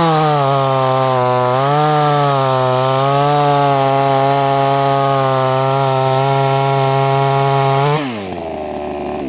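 JonCutter G2500 25.4cc two-stroke top-handle chainsaw running at full throttle through a 10-inch poplar log. The revs dip briefly about a second and a half in as the chain bites, then hold steady through the cut. Near the end they fall away as the throttle is released.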